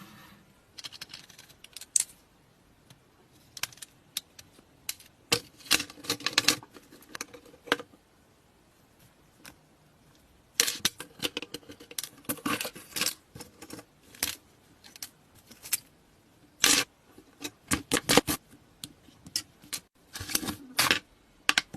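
Irregular metallic clicks and clinks of parts and hand tools being handled, in scattered clusters with short quiet gaps between them.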